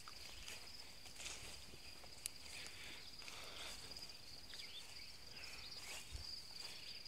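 A steady high-pitched trilling of insects, with the swishing and rustling of tall grass and brush being walked through.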